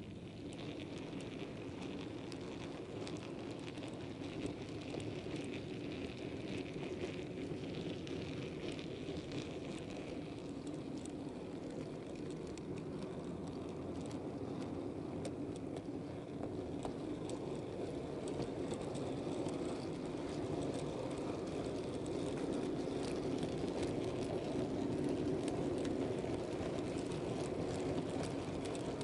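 Model railway goods wagons rolling along the track, heard from on board the train: a steady rumble of wheels with frequent small clicks, growing louder in the second half.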